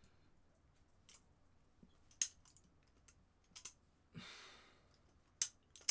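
Practice butterfly knife (balisong) being flipped: about half a dozen sharp metal clicks at uneven spacing as the handles and blade swing and knock together. A short breath comes a little after four seconds in.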